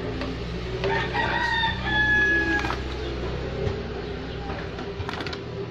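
A rooster crowing once: one long pitched call starting about a second in and lasting nearly two seconds, falling slightly at the end.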